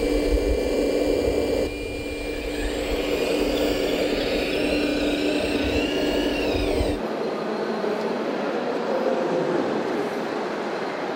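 Model RC hydraulic excavator at work: a steady machine hum with gravel rumbling out of the bucket into a metal dump trailer at the start. A whine from its pump and drive rises and shifts in pitch as the boom swings and lifts. About seven seconds in, the sound changes abruptly to a thinner, steady background noise.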